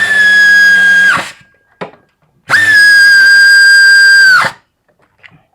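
A handheld power driver spinning bolts in, in two runs: a steady high motor whine of about a second, then one of about two seconds. Each run spins up quickly, holds its pitch and winds down.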